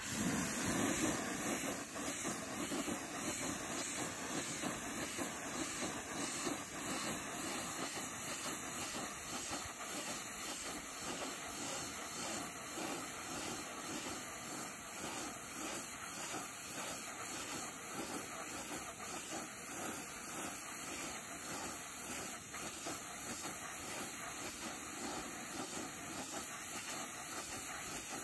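Pressure washer jet hissing steadily as it sprays a white picket fence, blasting green algae off the boards.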